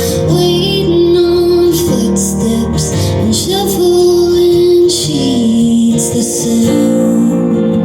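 A woman singing a song live, holding long notes over acoustic instrumental accompaniment.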